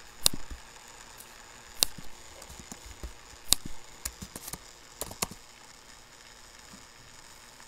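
Computer keyboard keys being struck, a handful of separate sharp clicks spaced irregularly over about five seconds, over a faint steady hiss.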